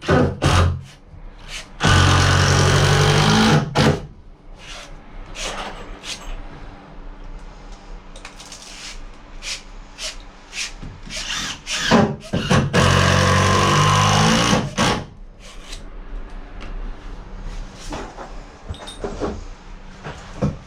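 Power drill running in two steady bursts of about two and three seconds, with knocks and handling clatter between them.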